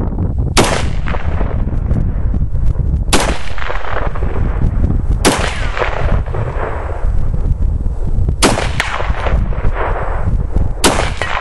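SVT-40 semi-automatic rifle firing five shots of 7.62x54R, spaced about two to three seconds apart, each shot trailing off in an echo. All five fire without a misfire. Heavy wind rumbles on the microphone throughout.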